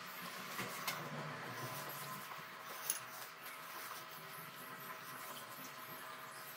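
Faint rubbing of a ball of soft dough rolled under the palm on a marble countertop, with a couple of light taps as dough is handled and set down, over a faint steady hum.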